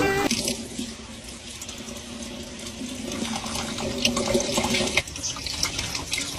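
Tap water running and splashing, with irregular small spatters.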